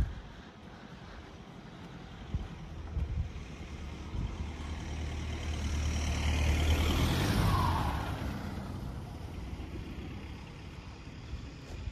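A Hyundai hatchback car driving past close by: its engine and tyre noise swell to a peak about seven seconds in, then fade as it moves away.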